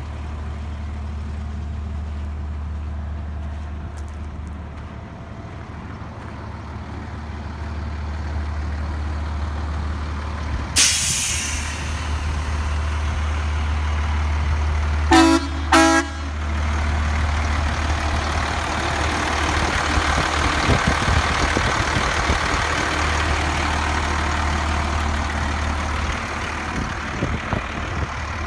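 1992 International fuel truck's engine idling steadily. About a third of the way in there is a sudden hiss of released air, and about halfway through come two short horn toots.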